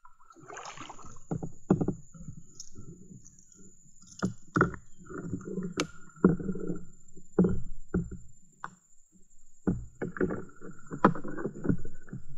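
Kayak paddling: a double-bladed paddle dipping and pulling through shallow water, with splashes and drips and several sharp knocks scattered through the strokes.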